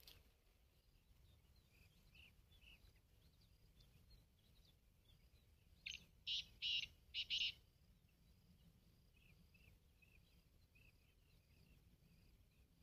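Black francolin calling: a quick run of about five loud, harsh notes about six seconds in. Faint, repeated chirps of other small birds run underneath.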